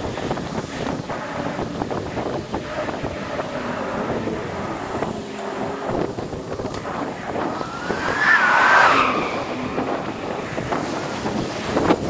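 Wind buffeting the microphone of an electric scooter riding through city traffic, with the noise of cars passing. About eight seconds in, a brief louder tone slides upward and breaks.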